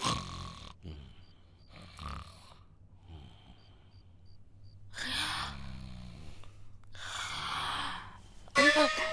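A person snoring: two long snores, about five and seven seconds in. Near the end comes a short vocal sound that bends up and down in pitch.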